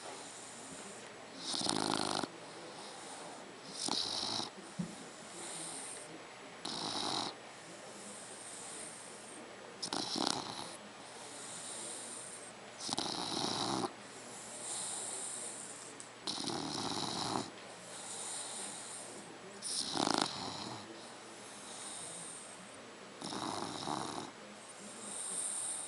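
A 3-month-old Dogue de Bordeaux puppy snoring in its sleep, a loud rasping snore about every three seconds with softer breaths in between.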